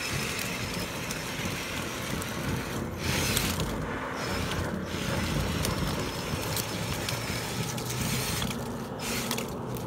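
Battery drill whirring as it spins a 1/2-inch PVC rod with a toilet brush on the end inside a dryer vent, the brush rattling and scraping against the duct, over the steady rush of an electric leaf blower blowing through the vent.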